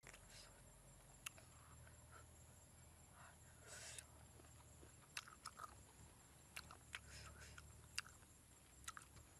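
Faint mouth sounds of a person chewing cooked snail meat: scattered small wet clicks and lip smacks, with a brief hissy sound about four seconds in.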